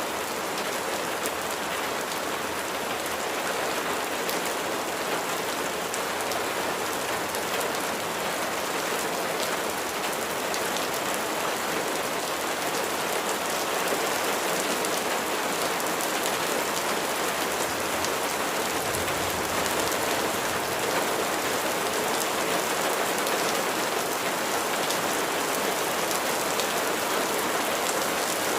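Steady rain falling, an even hiss with many small, sharp drop ticks through it.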